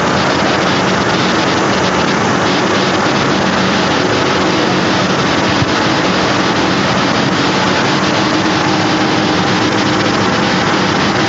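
Car running with a steady, loud rushing noise and a low engine hum underneath.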